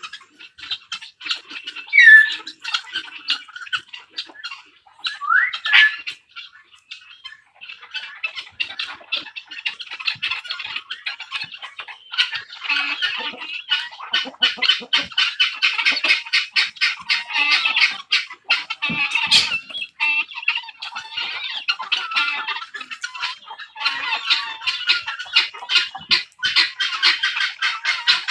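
A flock of poultry calling over and over in rapid, harsh squawks, growing denser in the second half. Two short rising calls stand out about two and five seconds in.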